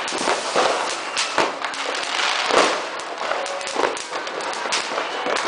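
New Year fireworks and firecrackers going off: a dense, irregular run of bangs and pops over a continuous crackle, with one louder bang about two and a half seconds in.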